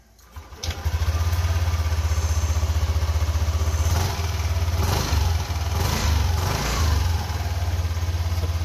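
Yamaha NMAX version 2 scooter's single-cylinder four-stroke engine on its stock exhaust, starting about half a second in and settling into a steady idle, with a few short throttle blips in the second half.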